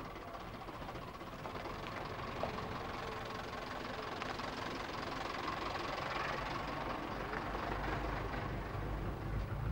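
Fiat minibus engine running as the bus drives up and passes close by, a steady rumble that grows gradually louder.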